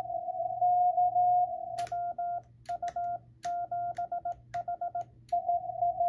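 Morse code (CW) tones from a Yaesu FT-950 HF transceiver, a single tone keyed on and off. A received station is heard from the speaker over faint band noise. About two seconds in, the operator's own keyed reply is heard as sidetone, in short runs of characters with sharp clicks at the start of several runs and silent gaps between. The received signal returns near the end.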